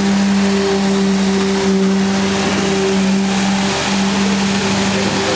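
Concrete pour equipment, a concrete pump feeding the hose and a concrete vibrator, running steadily: a constant-pitched hum over a broad rushing noise.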